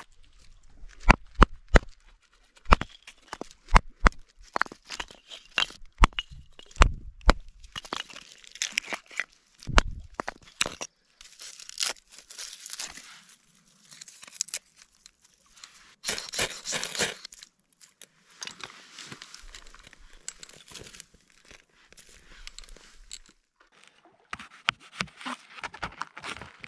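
Camp chore handling sounds in quick succession: a run of sharp snaps and knocks, then crunching and tearing as hands pull apart fish remains, and near the end a knife slicing through raw potatoes on a cutting board.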